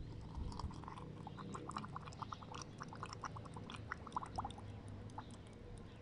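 Olive oil poured in a thin stream into a glass jar packed with St John's wort flowers. A quick, faint run of small bubbling pops lasts until about five seconds in, as air escapes from among the flowers while the oil soaks down.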